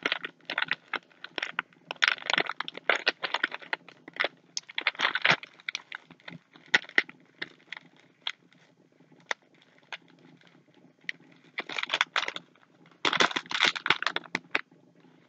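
Plastic M&M's candy bag crinkling as it is handled and torn open, in irregular bursts of crackling with a sparser stretch of single clicks in the middle.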